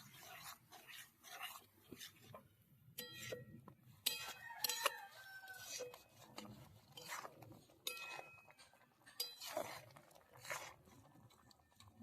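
Chickens clucking and a rooster crowing, loudest about four to five seconds in, with a couple of short metallic clinks.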